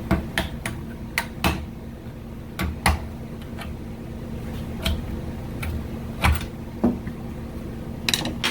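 Irregular metallic clicks and knocks, about a dozen of them, as the rear bumper shock absorber is worked loose from its mount and handled.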